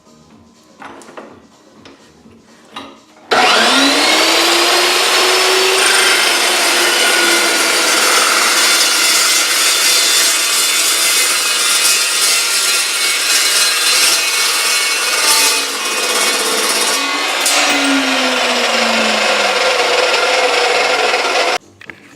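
Evolution EVOSAW 380 dry-cut metal chop saw, with a 15-inch carbide-tipped blade, starting up with a rising whine about three seconds in and then cutting through thick steel with a loud, steady sawing noise. The pitch drops near the end and the sound cuts off suddenly.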